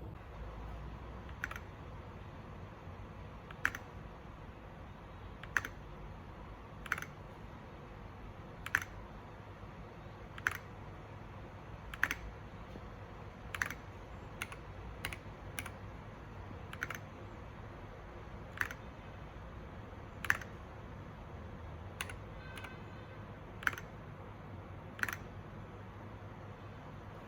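Mechanical keyboard keys with MDA-profile keycaps pressed one at a time, a sharp clack every second or two, with a few quicker presses in the middle.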